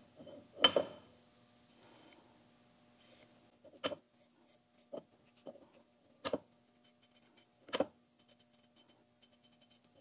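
Blue felt-tip marker worked along the teeth of a large steel milling cutter as the cutter is turned by hand on its arbor. Several sharp clicks come a second or two apart, the loudest about a second in, over a faint steady hum.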